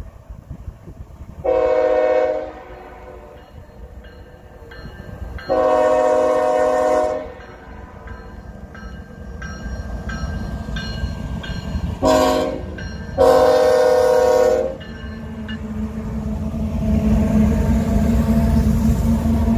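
GE Evolution-series (GEVO) diesel locomotive's air horn sounding the grade-crossing signal, long, long, short, long: the warning for a road crossing ahead. After the last blast the locomotives' low rumble grows louder as the train approaches.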